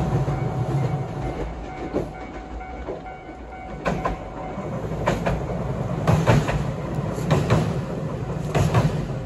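A passing train, its wheels clacking over rail joints in repeated pairs of knocks over a low rumble.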